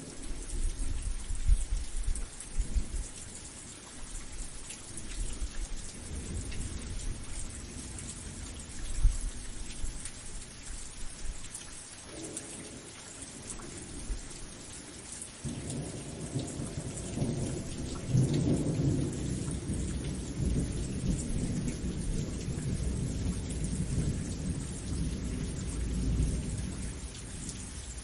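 Steady rain falling, with several rumbles of thunder. The first rumbles come in the opening seconds; a long rolling rumble starts about halfway through and dies away near the end.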